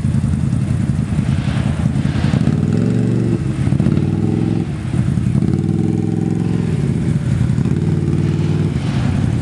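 ATV engine revving hard in two long bursts, about two and a half seconds in and again around five and a half seconds, over a steady engine rumble, as a four-wheeler stuck in deep mud is pulled out.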